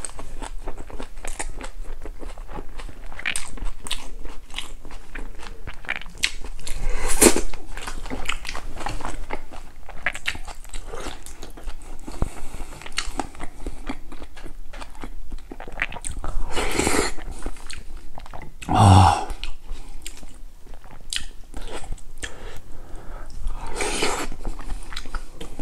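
Close-miked eating sounds: chewing and crunching of kimchi and boiled pork belly, with wet mouth clicks. A few louder bites or slurps stand out, the loudest about three quarters of the way in.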